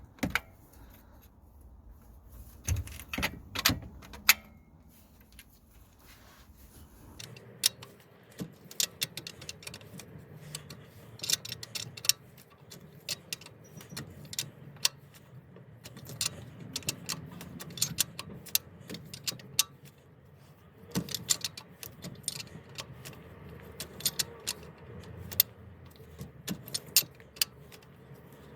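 Repeated light metallic clicks and clinks of hand tools on metal as a reverse light switch is screwed into a car gearbox.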